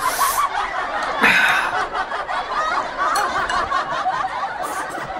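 Continuous high-pitched snickering laughter.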